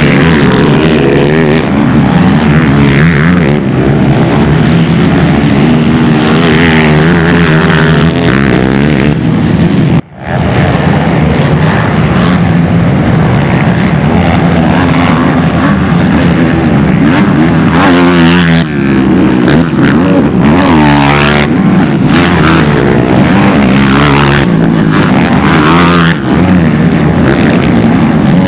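Racing quad (ATV) engines revving hard, their pitch repeatedly climbing and falling as they accelerate and back off, with a sudden brief dropout about ten seconds in.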